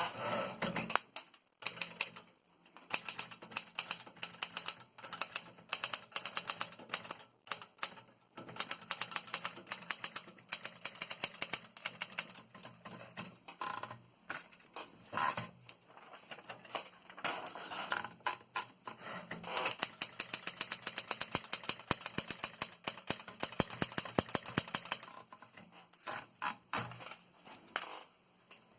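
Typing on a Remington Model 16 standard manual typewriter: type bars snap against the platen in uneven runs of sharp keystrokes with short pauses, fastest and most even in the second half.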